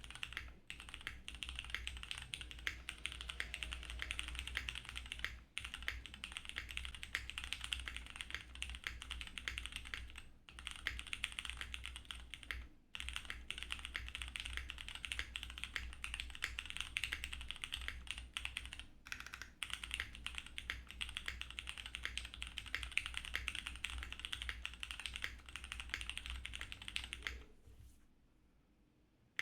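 Fast, continuous typing on a mechanical keyboard with Cherry MX Grey tactile switches, a POM plate and DCS-profile keycaps: a dense run of key clicks with a few brief pauses, stopping shortly before the end.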